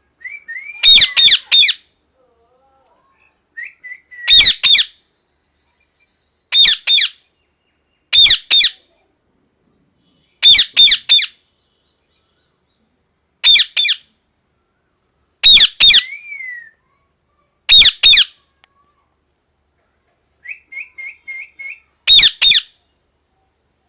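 Indian ringneck parakeet screeching loudly in repeated bursts of two to four harsh calls, roughly every two seconds, with quieter short chirps between them, including a quick run of five chirps near the end.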